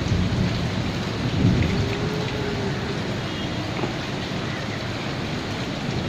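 Steady rain with a low rumble of thunder, swelling briefly about a second and a half in.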